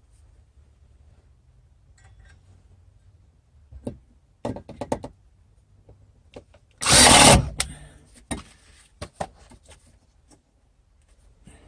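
Cordless drill run once in a short burst of under a second against a wooden floor beam overhead, with scattered knocks and clicks of handling tools and hardware before and after.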